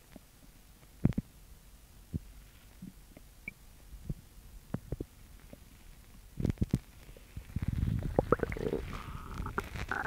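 A girl's upset stomach growling: scattered small gurgles and pops at first, then a long, rolling low gurgle that builds over the last few seconds.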